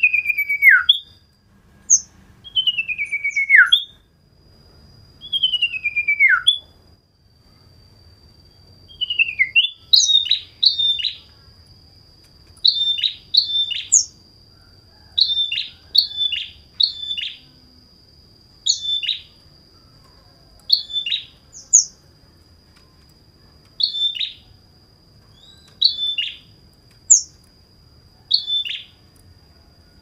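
Female sirdung (sirtu), the cage-bird name for the common iora, singing: three long falling whistles, then a run of short, sharp chirps every second or two. A thin steady high tone runs underneath.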